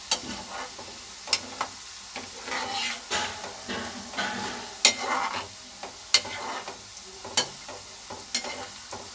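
Besan-coated peanut pakoras deep-frying gently in oil in a kadhai over a low flame, with a steady sizzle that swells as they are stirred. A metal slotted spoon stirs and lifts them, knocking against the pan in a sharp click every second or so.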